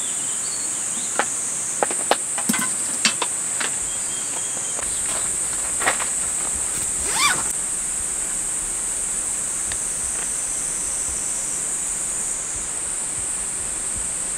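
Insects singing steadily in a high-pitched drone. A few light clicks come in the first few seconds and again around six seconds in.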